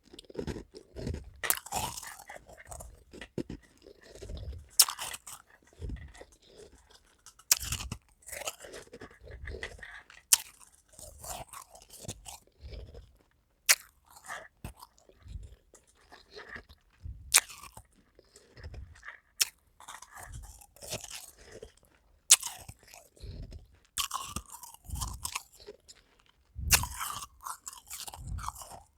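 A person biting and chewing powdery half-moon ice: sharp crunching bites every few seconds, with softer grinding crunches in between as the ice is chewed.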